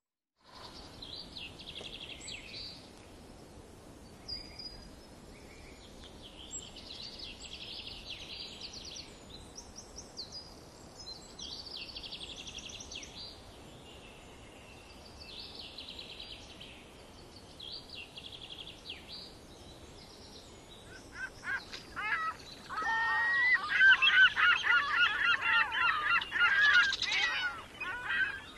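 Ambient birdsong: faint, short bird calls and chirps repeating, then louder, rapidly warbling calls for the last quarter or so.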